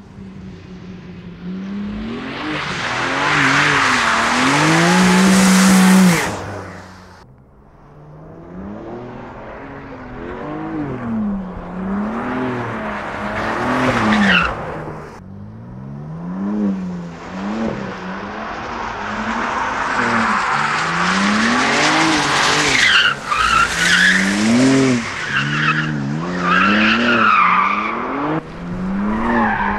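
BMW M4 Competition's twin-turbo straight-six engine driven hard, its note climbing and falling again and again through the gears. It rises to a loud peak about six seconds in, then drops away sharply. Tyres squeal in slides around the middle and through the last third.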